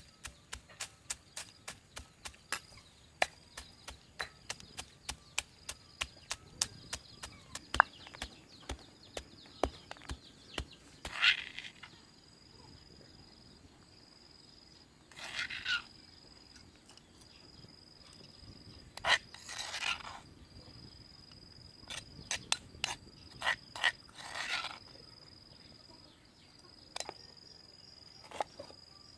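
Knife chopping on a cutting board in quick, even strokes, about three a second, for the first ten seconds, then a few short scraping swishes several seconds apart; an insect trills steadily behind.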